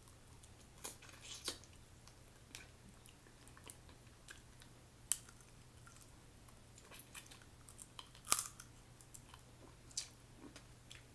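Snow crab legs being bitten, chewed and broken open by hand: scattered sharp cracks and snaps of shell between soft chewing. The loudest crack comes about eight seconds in.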